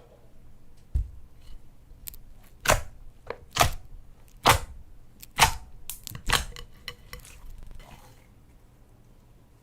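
Slime being handled by hand, giving a series of sharp popping clicks, about one a second, with smaller crackles between them and a low thump just before.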